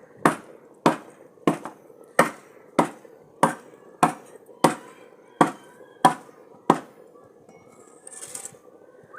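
Chopping with a blade: eleven sharp strikes at a steady pace, about one every 0.6 seconds, stopping a couple of seconds before the end, followed by a short burst of noise.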